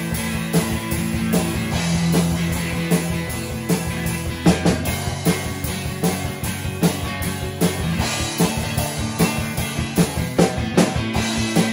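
Instrumental rock music with no singing: guitar over a drum kit keeping a steady beat.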